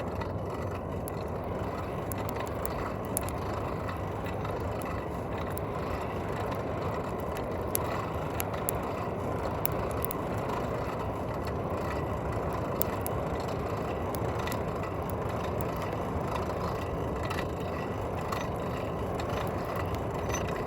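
Wood-fired forge burning with a steady rushing noise while a rebar knife heats in it, and a few sharp crackles from the burning sticks.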